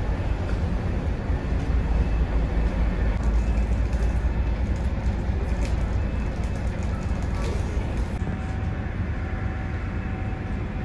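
Steady low drone of a car ferry's engines and machinery heard inside the passenger deck, with faint light clicks over it and a faint steady tone joining about eight seconds in.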